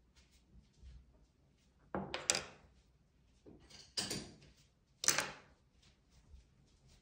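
Tableware set down on a table: a ceramic rice bowl, a wooden spoon and wooden chopsticks placed one after another. They make short, sharp clacks: a double knock about two seconds in, then single ones about four and five seconds in.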